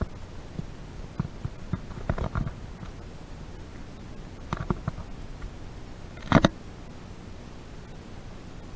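Scattered soft knocks and rustles from someone moving about with a handheld camera, over a steady low room rumble. The knocks come at uneven intervals, and the loudest is a short bump about six seconds in.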